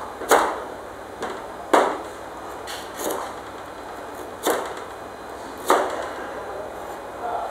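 Cleaver chopping through a galangal root onto a cutting board: five sharp knocks spaced a little over a second apart, with lighter taps in between.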